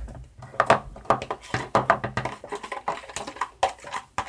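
A spoon stirring a shampoo-and-salt slime mixture in a bowl, clicking and tapping irregularly against the bowl's sides, several taps a second.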